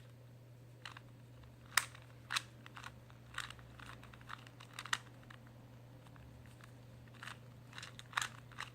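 A plastic 2x2 Rubik's cube being turned by hand: irregular small plastic clicks and clacks, with louder snaps about two seconds in and near the end.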